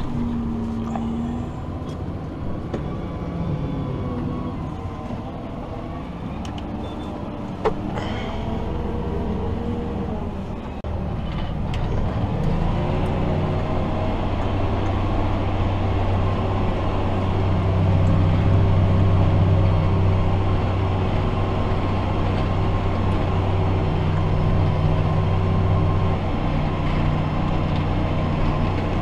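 Fendt 828 Vario tractor's six-cylinder diesel heard from inside the cab, working under load while pulling a compost spreader. Its pitch shifts at first, then about eleven seconds in the engine note grows louder and settles into a steady drone, with a single sharp click shortly before that.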